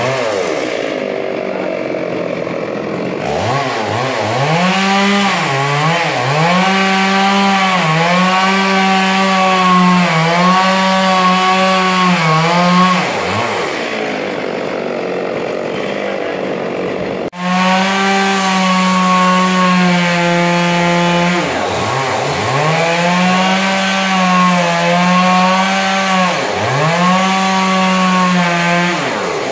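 Two-stroke chainsaw running at high revs as it cuts through a log. Its engine pitch sags and recovers several times as the throttle is eased and the bar loads up, with one abrupt break about seventeen seconds in.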